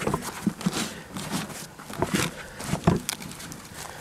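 Gloved hands rummaging through loose potting mix in a wheelbarrow: an irregular run of soft rustles and crunches, with a few louder crunches about two and three seconds in.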